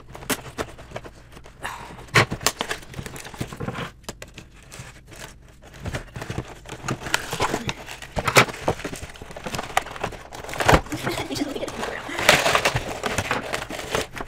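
Stiff clear plastic clamshell packaging being cut with scissors and pried apart: irregular sharp snaps and cracks with crinkling, busier and louder over the last few seconds as the plastic is pulled open.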